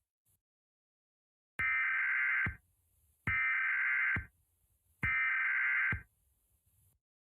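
Emergency Alert System SAME header: three bursts of buzzy digital data tones, each lasting about a second, with short gaps between them, marking the start of a new alert.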